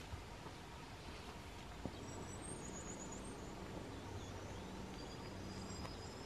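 Faint birdsong: thin, high chirps and short trills, over a low, steady hum.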